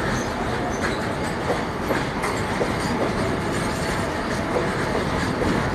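Double-stack container freight wagons rolling past close by: a steady rumble of wheels on rail, broken by irregular clacks as the wheels cross rail joints.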